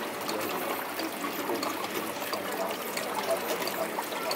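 Steady trickle of running water from a small water feature in a model nativity scene, with faint voices underneath.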